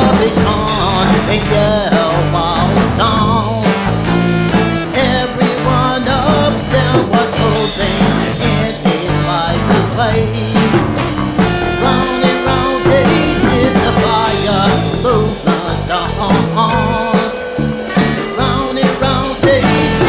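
A band recording in a loose rock and ska vein with a steady beat: bass notes moving in steps under drums, with a wavering melody line on top.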